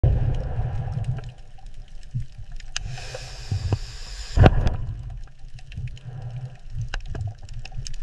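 Underwater ambience: a low rumble with bubbling and small clicks, a hissing rush near the middle, and one loud thump about halfway through.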